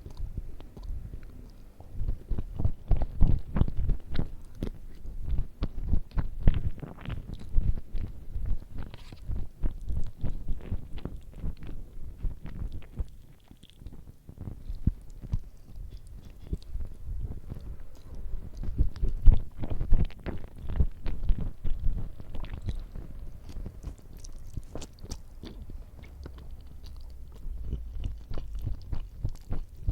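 A person eating close to the microphone: irregular wet chewing and bites, with a short lull about halfway through.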